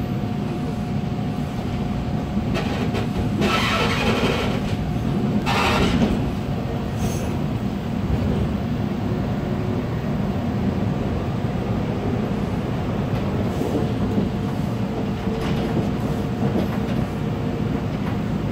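Toronto subway train (TTC T1 car) heard from inside while running on open track: a steady rumble of wheels on rail with a faint steady whine, and two brief louder rushes of wheel and track noise about four and six seconds in.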